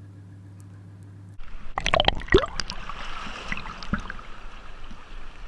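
A steady low hum, then water sloshing and splashing with small knocks, starting abruptly about a second and a half in.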